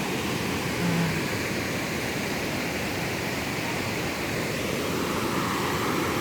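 Steady rush of water pouring down a waterfall cascade.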